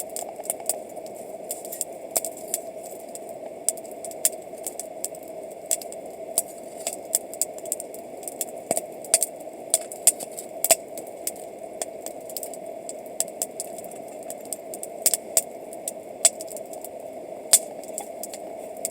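Wood campfire crackling, with irregular sharp pops and snaps, some louder than others, over a steady background hiss.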